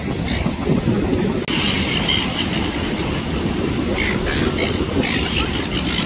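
Silver gulls calling several times over a steady low rumble, starting about a second and a half in.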